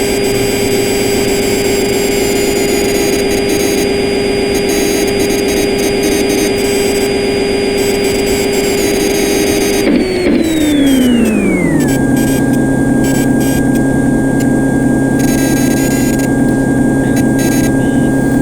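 Simulated CNC lathe machining sound from Swansoft CNC simulation software running a turning program: a steady machine whine over a hum. About ten seconds in, the pitch glides down over a couple of seconds and settles at a lower steady tone.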